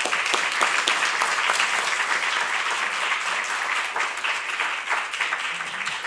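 An audience applauding, many hands clapping steadily.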